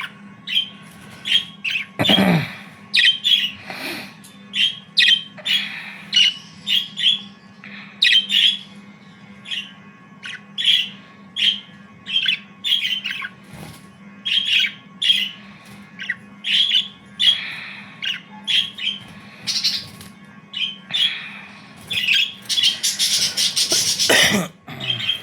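Black-face Japanese Hagoromo budgerigars chirping and squawking, many short calls in quick succession, with a few louder squawks, over a steady low hum.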